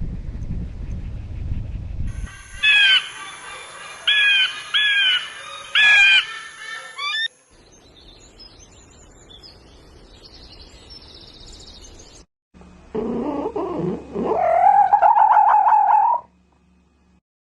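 A run of separate animal-call recordings, edited one after another. First a low rumbling noise, then four or five short, loud, pitched calls, then faint high chirps, and after a brief cut one longer call that rises and holds with a wavering pitch.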